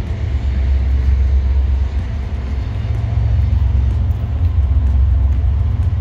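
Wind buffeting the microphone: a loud, steady low rumble.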